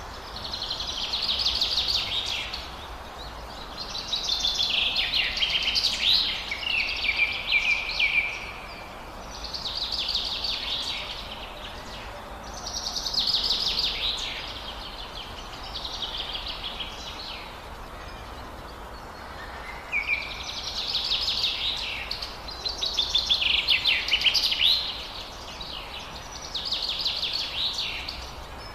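Small birds singing in repeated bouts of fast, chattering high notes. Each bout lasts a second or a few seconds, with short pauses between.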